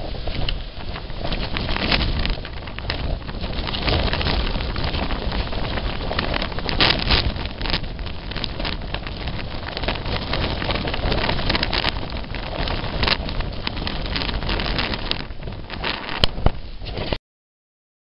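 Strong wind buffeting the microphone in gusts, with a heavy low rumble; it cuts off suddenly near the end.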